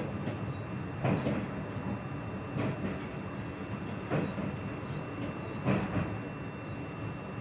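Train running on the rails, its wheels clacking over rail joints about every one and a half seconds over a steady rumble.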